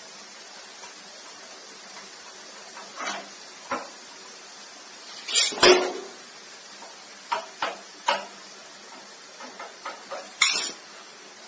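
Irregular metallic clinks and knocks as metal parts and tools are handled during work on an air conditioner's four-way valve pipework, over a steady faint hiss. The knocks are loudest about five to six seconds in and again near the end.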